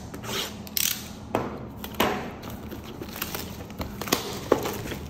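Trading card booster box packaging being handled and opened: irregular crinkling and rustling with several sharp clicks and snaps.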